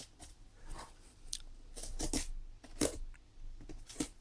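Seal stickers on a small cardboard box being cut and broken open, a handful of short, sharp snips and crackles.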